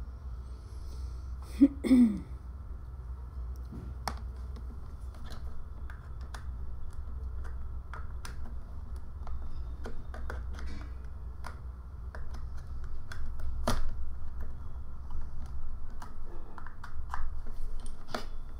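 Scattered computer keyboard and mouse clicks at irregular intervals over a steady low hum. A brief pitched sound that bends up and down comes about two seconds in.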